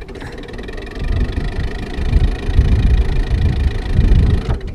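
Fishing boat's motor running at trolling speed, a steady low rumble that grows louder about a second in.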